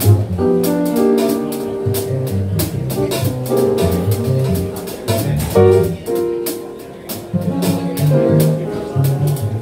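Live small-group jazz playing: a moving bass line under held chords, with steady cymbal strokes keeping time.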